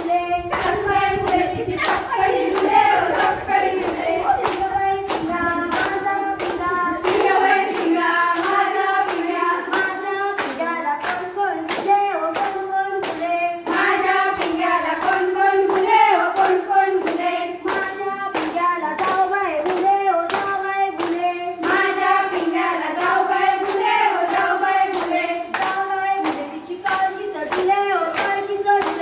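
Women singing a fugdi folk song together, kept in time by steady hand claps, about two to three claps a second.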